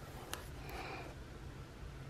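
Quiet handling of a planner sticker strip and paper: a sharp light click about a third of a second in, then a fainter click and a brief soft rustle.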